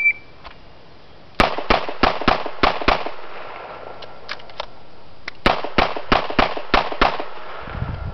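Revolver fired six times in quick succession, a pause of about two and a half seconds with faint metallic clicks while it is reloaded with a speed loader, then six more rapid shots.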